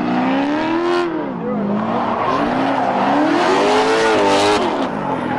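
A drift car's engine revving hard while it slides sideways, the revs climbing and dropping several times, with the hiss and squeal of the spinning rear tyres underneath.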